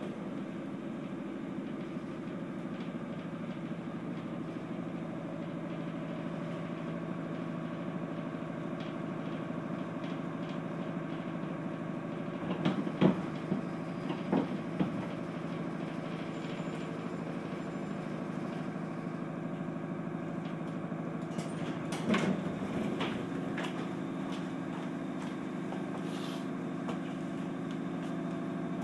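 Inside a JR 211 series electric train car: a steady low hum from the train, with a few sharp knocks about halfway through and another around three-quarters of the way in.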